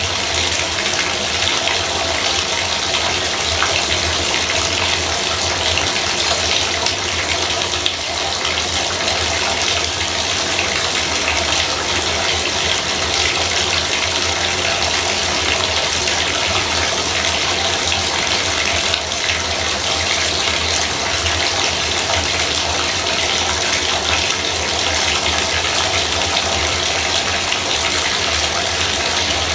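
Bathtub faucet running steadily, water pouring into the tub in an even, unbroken gush.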